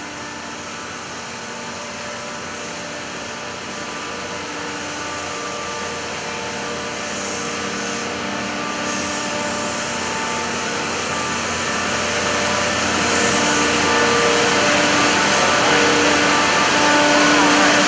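Cotton gin machinery running while a module feeder feeds a cotton module into the gin: a steady mechanical din with several humming tones, growing steadily louder.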